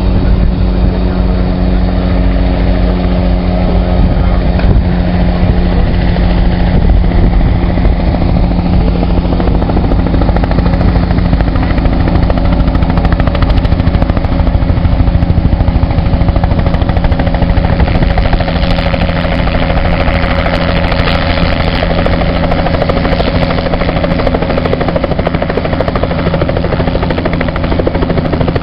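Light two-bladed helicopter flying in and descending to land, its rotor chop getting closer and clearer over the second half, over a steady low hum.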